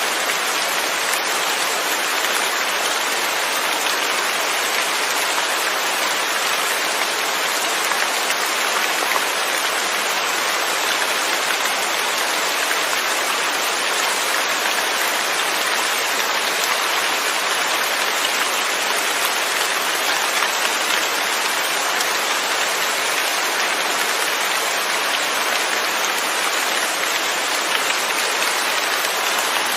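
Steady rain falling on a surface, a dense even hiss of drops with no thunder.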